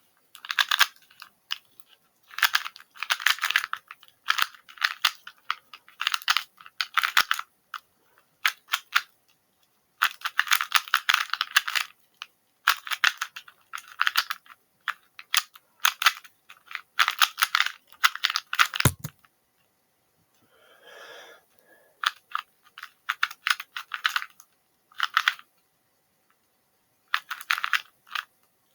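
A plastic 2x2 puzzle cube being turned fast in a speedsolve, clacking in quick runs of clicks with short pauses between them.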